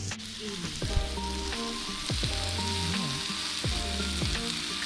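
Food sizzling steadily in a hot oiled iron pan over a campfire, with a single knock about a second in.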